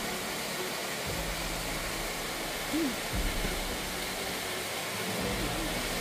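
Steady rush of water in a mountain stream, an even hiss with no rhythm, with a few soft low thumps.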